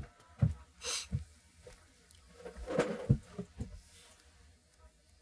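Several soft thumps and rustles of a person coming in and sitting down on a chair, with a short breathy hiss about a second in.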